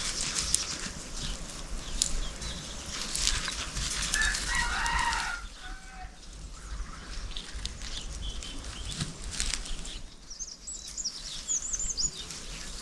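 Rustling and light clatter throughout, with a chicken's call about four to five seconds in and small birds chirping high near the end.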